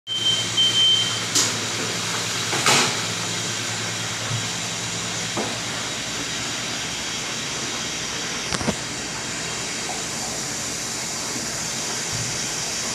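Steady rushing, hissing noise of commercial kitchen equipment and ventilation, with a low hum that fades out about five seconds in. In the first second a high electronic beep pulses, and a few sharp metallic knocks come during the first three seconds and again near nine seconds.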